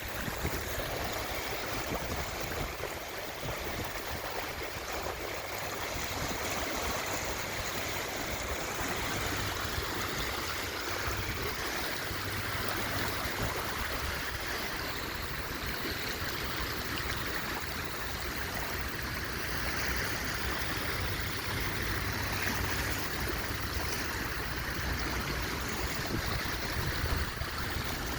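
Flowing stream water, a steady, even rush.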